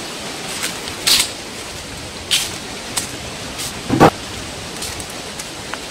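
Steady rush of distant running water under footsteps scuffing on a concrete path, with one louder knock about four seconds in.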